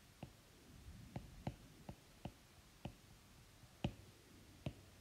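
Stylus tip tapping on a tablet's glass screen while handwriting: about eight sharp, irregular taps, the loudest a little under four seconds in.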